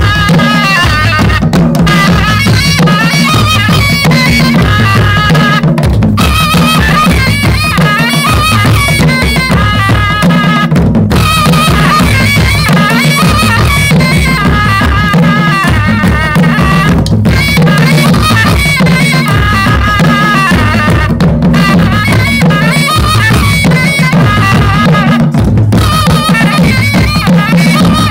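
Ladakhi folk dance music played live: a surna (shawm) melody over a steady beat on daman drums, with short breaks in the tune every few seconds.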